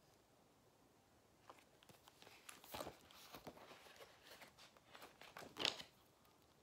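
Faint paper rustling as a page of a spiral-bound picture book is turned and the book is handled, with two louder swishes, one about three seconds in and one about a second before the end.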